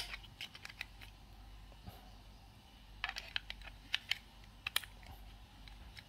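Two AAA batteries being pressed into a plastic remote control's battery compartment: a sharp click at the start, then small scattered plastic clicks and taps, with a denser run of them about three seconds in.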